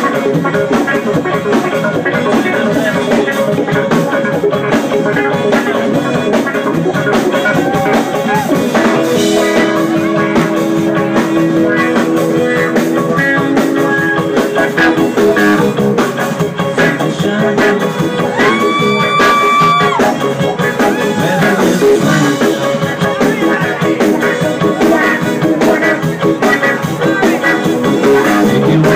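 Live rock band playing: electric guitar, keyboard, bass and drum kit. A high note is held for about two seconds near the middle.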